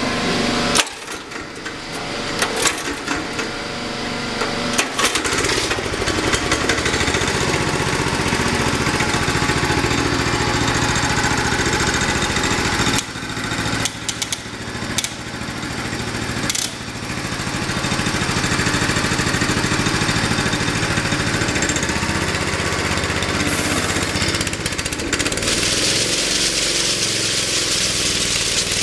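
Honda 8 hp single-cylinder engine on a Wacker CT36A walk-behind concrete power trowel, running as the trowel's blades turn on a concrete floor. There is a sharp knock about a second in, the engine's level dips and rises several times, and it runs louder and hissier in the last few seconds.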